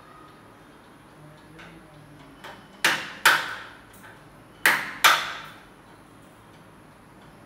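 Two pairs of sharp knocks on the aluminium window frame as it is being fitted, each knock ringing out briefly: one pair about three seconds in, the other about a second and a half later.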